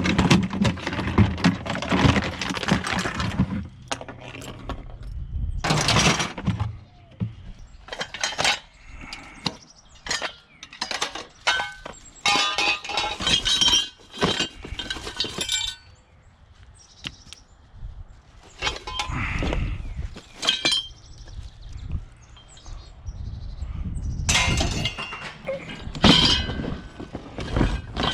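Pieces of scrap metal being handled and sorted: irregular clanks, clinks and rattles as items are picked up, knocked together and dropped, with short pauses between.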